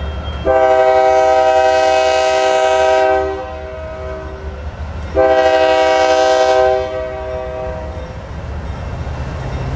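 Diesel freight locomotive's Nathan Airchime multi-tone air horn sounding two blasts: a long one about half a second in and a shorter one about five seconds in, each ringing on briefly after it stops, over the low rumble of the passing train.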